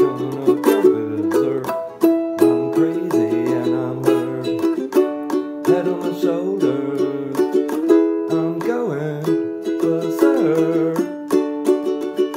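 Ukulele strummed hard and fast in a driving punk rhythm, with the chords changing every few seconds.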